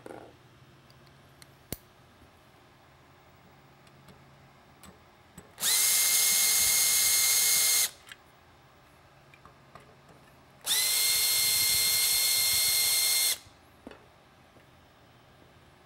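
Cordless drill/driver backing out screws inside a floodlight housing: the motor whines in two runs, about two and two and a half seconds long, each rising quickly to a steady pitch.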